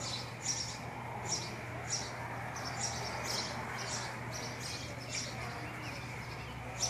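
A small bird chirping over and over, short high chirps coming about once or twice a second, over a steady low hum.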